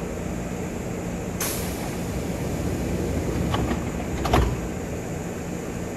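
Pneumatic sliding doors of a Yoro Railway electric train closing: a short hiss of air about a second and a half in, then the doors running shut with a few knocks, ending in a sharp thud a little after four seconds. The stationary train hums steadily underneath.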